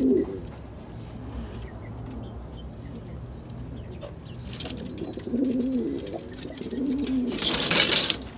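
Domestic pigeons cooing in a loft, with several low coos from about five to seven and a half seconds in. A short scuffling noise near the end is the loudest sound.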